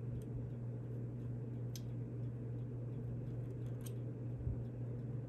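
Steady low electrical hum with a few faint clicks while a soldering iron melts solder onto a stepper-motor pin on a circuit board.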